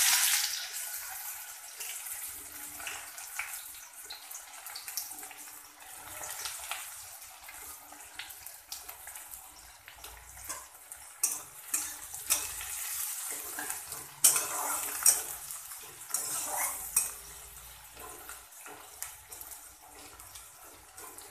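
Sliced onions frying in hot oil in an aluminium kadai: a loud sizzle as they hit the oil, settling into a steady frying hiss. Partway through, a metal spatula scrapes and clinks against the pan as the onions are stirred.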